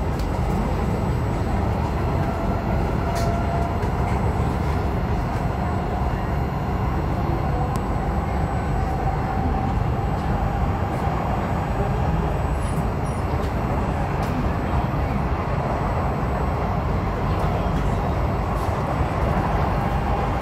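SMRT C751B electric multiple unit heard from inside the carriage while running: a steady rumble of wheels on rail, with a faint tone that rises slowly in pitch.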